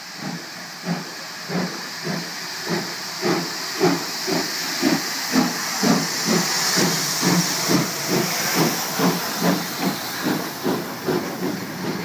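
PT47 steam locomotive pulling away with a steady hiss of steam and a regular exhaust chuff that quickens from about two beats a second to nearly three as it gathers speed. The chuffs are loudest in the middle as the engine passes close by.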